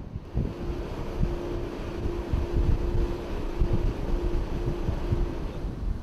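Wind buffeting the microphone over the low rumble of a FRISC rigid-hull inflatable boat under way. A faint tone pulses on and off about twice a second through most of it.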